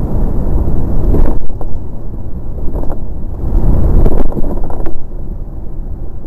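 A DN iceboat running fast over smooth lake ice: a loud, low rumble of wind on the microphone mixed with the runners' rumble and scrape on the ice, swelling and easing, with a few sharp clicks.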